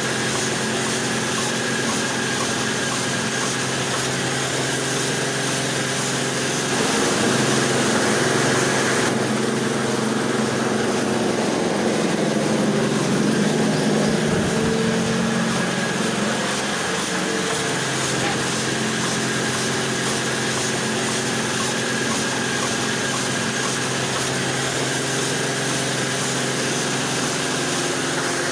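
Small electric motor of a DIY mini thresher running with a steady hum. It gets louder and fuller from about a quarter of the way in until past the middle, then settles back.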